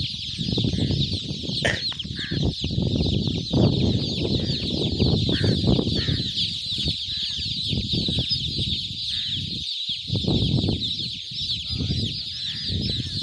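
A dense chorus of thousands of young chicks peeping: many short, high, falling chirps overlapping without a break. Irregular low rumbles run underneath.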